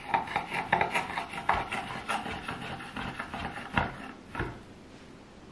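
Chef's knife slicing bananas on a wooden cutting board: the blade taps the board about two to three times a second, then stops a little after four seconds in.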